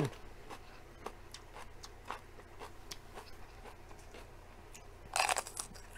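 Close-up chewing of raw yellow bell pepper: faint wet mouth clicks, then a loud crisp crunch about five seconds in.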